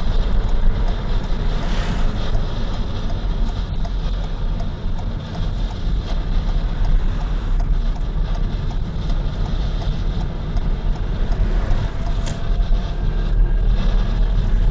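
Car driving at low town speed, heard from inside the cabin: a steady low rumble of engine and tyre noise.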